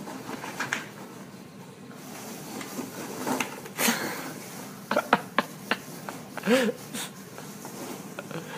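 Foam packing peanuts rustling and squeaking as a small dog burrows through a box full of them, with a cluster of sharp squeaks about five seconds in. About six and a half seconds in comes the loudest sound, a brief vocal sound that rises and falls in pitch.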